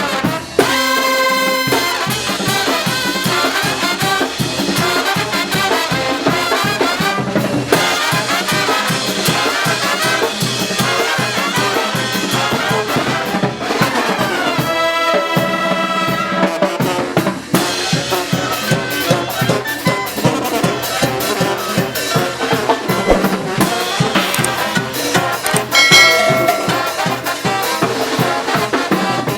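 Oaxacan brass band playing muerteada carnival music live: trumpets and trombones over a fast, steady drum beat. Long held brass notes come about a second in and again around the middle.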